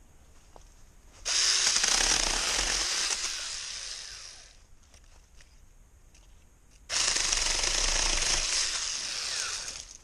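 Hancaner mini cordless chainsaw cutting wood in two bursts of about three seconds each, with a pause between; each cut starts suddenly and fades somewhat before stopping.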